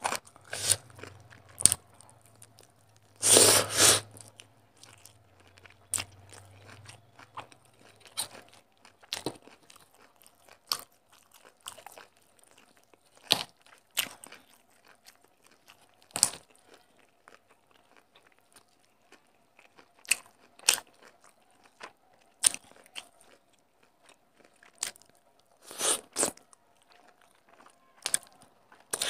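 Chewing and biting while eating chicken curry and rice by hand: irregular wet mouth clicks and smacks, with a louder crunchy burst about three seconds in and another near the end.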